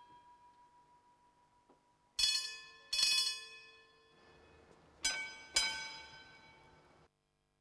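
Tram warning bells, foot-pedal gongs, struck and left to ring. One ring is fading at the start, then come two pairs of sharp strikes, each ringing out and dying away, before the sound cuts off suddenly near the end.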